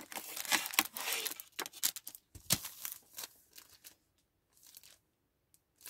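A pack of craft foam sheets crinkling and rustling as it is handled and turned over, in a quick irregular series of rustles that stops about four seconds in.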